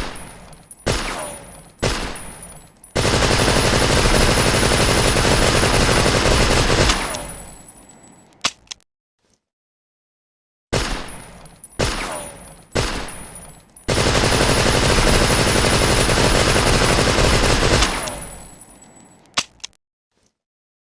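Tommy gun (Thompson submachine gun) firing: three single shots about a second apart, then a continuous burst of automatic fire lasting about four seconds that fades out, followed by a faint click. The same sequence then plays a second time.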